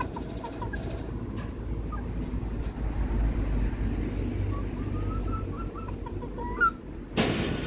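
Chickens in a wire pen clucking softly: a few short clucks at first, then a quick run of them in the second half. A steady low rumble runs underneath, and a brief rush of noise comes near the end.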